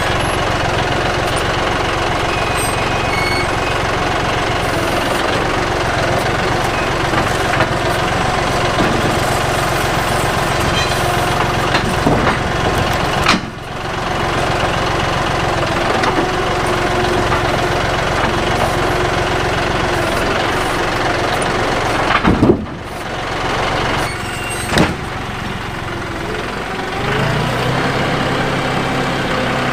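John Deere 5055E tractor's three-cylinder diesel engine running steadily while pulling a grading scraper over a gravel driveway. It dips briefly twice, with a few clicks, and its note changes near the end.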